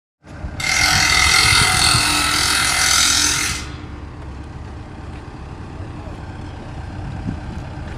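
A loud hiss lasting about three seconds that cuts off abruptly, over the steady low rumble of a running engine.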